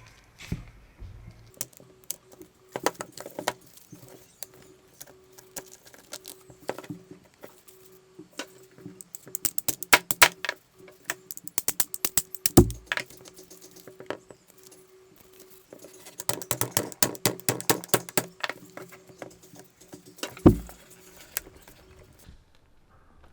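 Small hard parts and tools handled on a workbench: irregular clicking and rattling, with two runs of rapid clicks and two heavier knocks, one about halfway through and one near the end.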